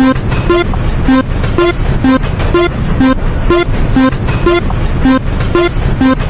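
Japanese railroad crossing alarm (fumikiri) ringing about twice a second, its strikes alternating between two pitches, over a heavy low rumble.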